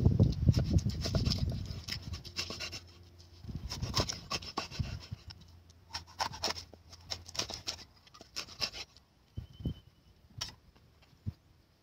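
A cleaver working a whole fish on a wooden chopping board: scraping and rubbing for the first two seconds, then irregular sharp knocks as the blade cuts through the fish and strikes the board.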